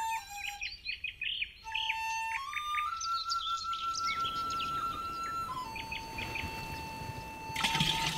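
Slow flute melody of long held notes, with birds chirping over it. Near the end, a short rush of liquid poured into a plastic container.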